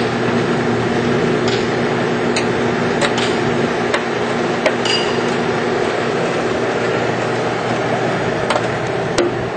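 Scattered light metallic clinks and taps of hand tools and hardware being handled, about nine over several seconds, over a steady mechanical hum.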